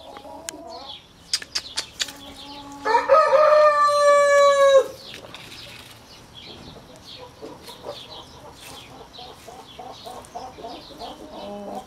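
Light Brahma rooster crowing once, a single crow of about two seconds starting about three seconds in, after a few sharp clicks. Soft repeated clucking follows in the second half.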